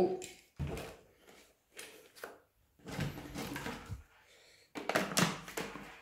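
Handling noises from a Silvercrest SHAZ 22.2 C3 cordless vacuum's plastic body and its charging lead as the charger plug is fitted: a few short knocks and scrapes, the loudest near the end.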